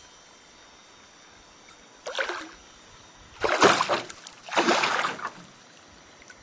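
A hooked walleye splashing and thrashing at the surface beside a canoe: a short splash about two seconds in, then two longer, louder bouts of splashing.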